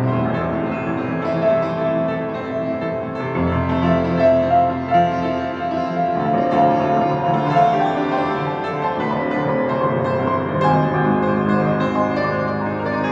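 Solo piano playing a gentle piece of sustained notes and chords, with a deep bass note held for a couple of seconds about three and a half seconds in.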